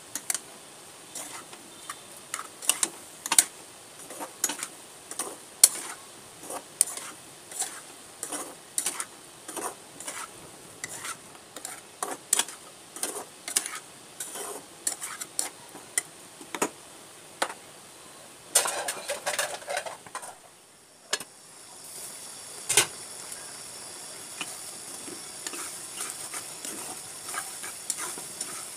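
A metal spatula scraping and tapping against a non-stick frying pan as sliced sponge gourd, potato and onion are stirred with spices. About two-thirds through, a short louder rush of noise gives way to a steady sizzling hiss as the vegetables cook in their sauce, with a few more scrapes.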